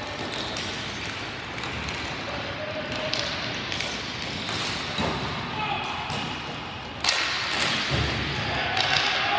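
Ball hockey play: sharp knocks of sticks and ball hitting the playing surface and boards, with players' shouts over a constant background of game noise. A louder knock comes about seven seconds in, and the shouting gets louder after it.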